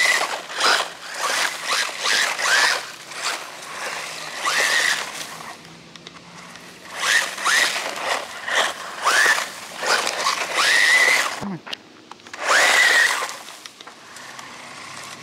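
Brushless electric motor of a 1/14-scale RC buggy whining in short bursts of throttle, its pitch rising quickly each time, more than a dozen times, with the tyres spraying loose dirt.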